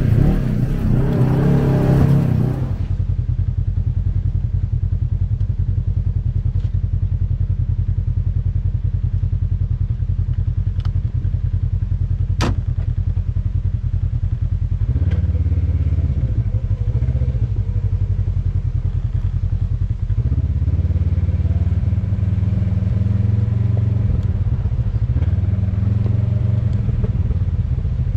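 Polaris RZR side-by-side's engine running steadily as it drives, its note changing about halfway through and again a few seconds later, with one sharp click about twelve seconds in. Background music plays for the first couple of seconds.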